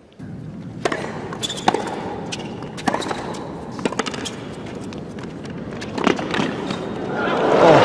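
Tennis rally on a hard court: irregular sharp pops of the ball struck by rackets over a low crowd hush. Near the end, crowd cheering and applause swell up loudly.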